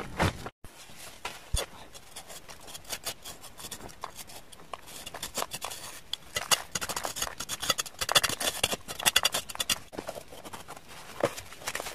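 Gloved hand scraping and crumbling partly set cement out of the hollow of a freshly cast cement flower pot: a dense run of short, gritty scrapes and scratches.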